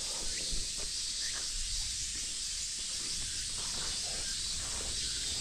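A chorus of cicadas making a steady high hiss, with soft footsteps about once a second beneath it.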